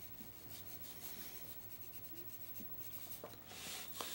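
Graphite pencil shading on drawing paper: faint, scratchy strokes, a little louder near the end.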